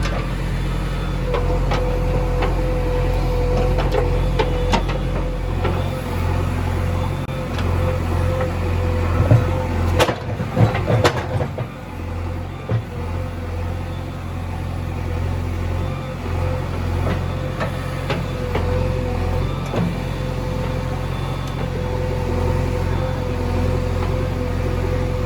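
A vehicle engine running steadily with a constant whine, and a short cluster of knocks and clanks about ten seconds in.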